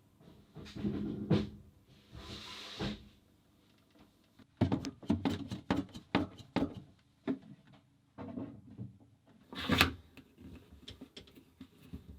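Scattered clicks and knocks, some in quick runs, with a short hiss about two seconds in.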